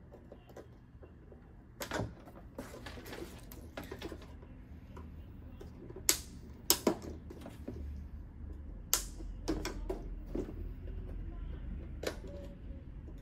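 Plastic latches of an LED TV panel's inner frame clicking and snapping as they are pried loose with a knife, along with knocks of the frame being handled: a series of sharp, irregular clicks.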